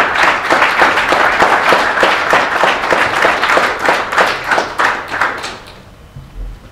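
Audience applauding: many hands clapping at once, then dying away about five and a half seconds in.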